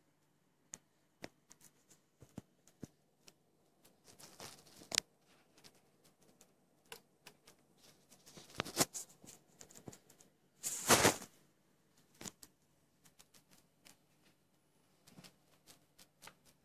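Scattered light clicks and crackles as a 1982 Monacor CDM-900/SW CRT monitor is switched on and its tube comes up, with a few short rustling bursts. The loudest burst comes about eleven seconds in.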